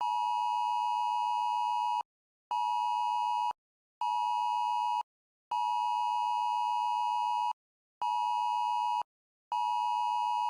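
Wireless Emergency Alert attention tone: a steady two-tone beep sounding in a long-short-short pattern, two seconds, then one, then one, with half-second gaps, played through twice. It announces an incoming emergency alert.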